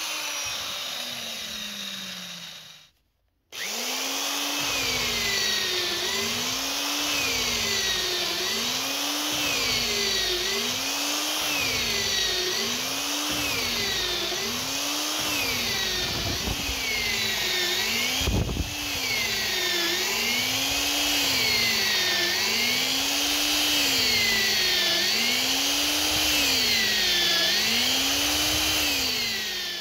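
Freshly repaired East German Eibenstock electric drills: first a drill motor winding down, its pitch falling. Then, after a short break, a drill boring into a wooden beam, its motor speed dipping and recovering in an even cycle about every second and a half as the bit bites and is eased off. A brief knock about halfway through.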